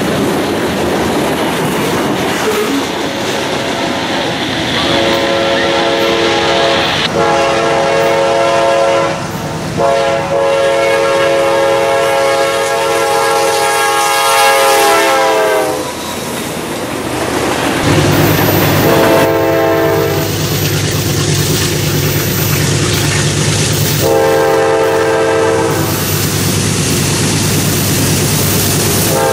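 CSX freight diesel locomotive's air horn blowing a chord of several notes in long blasts, over the rumble and clatter of rolling rail cars. After a change about two-thirds of the way in, another locomotive's horn sounds a short blast and then long ones over a low, steady diesel engine drone.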